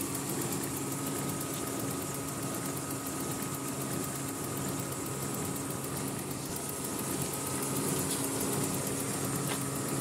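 Toyota 4A four-cylinder engine idling steadily with a constant hum.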